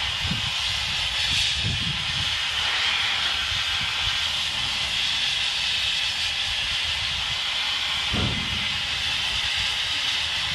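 Gas cutting torch hissing steadily as it burns through steel anchor chain, with irregular low rumbles underneath.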